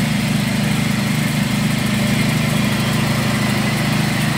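Motor-driven cast-iron grinder running steadily while fried peanuts, dried chillies and garlic are fed into it for peanut sauce.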